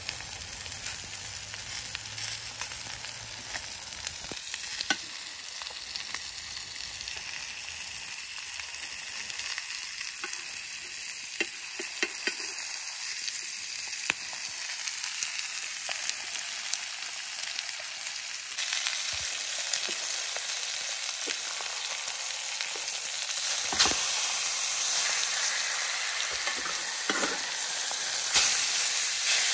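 Rib-eye steak sizzling in a cast-iron skillet: a steady frying hiss with scattered pops, growing louder about two-thirds of the way through.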